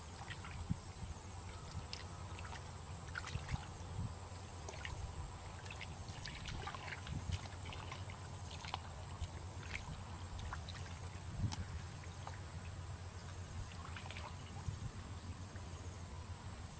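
Hands groping and sloshing in shallow muddy pond water while feeling for fish, with irregular small splashes and drips.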